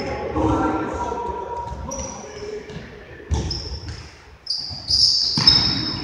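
Indoor futsal play in an echoing sports hall: players call out, trainers squeak on the hall floor, and the ball thuds off feet. There is a sharp thud about three seconds in, then a cluster of squeaks and thuds near the end as a goalkeeper goes down.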